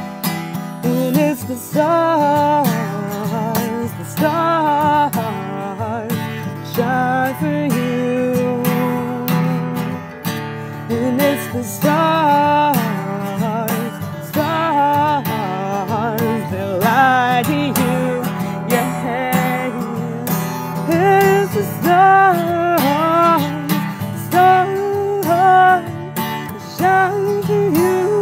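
Acoustic guitar strummed under a wavering sung melody with no clear words.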